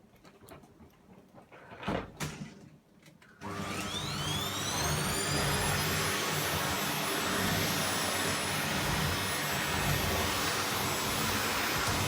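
A couple of light knocks, then a vacuum cleaner switched on about three and a half seconds in: its motor whine rises quickly in pitch as it spins up, then settles into a steady, loud running whoosh.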